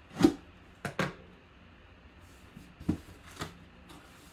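Folding knife slitting the tape on a cardboard box, then the cardboard flaps being pulled open: a handful of short, sharp scrapes and knocks, the loudest right at the start.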